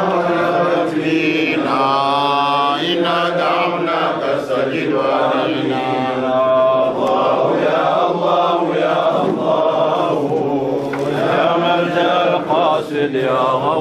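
Men's voices chanting an Arabic devotional chant in praise of the Prophet Muhammad, a continuous melodic recitation with long held notes.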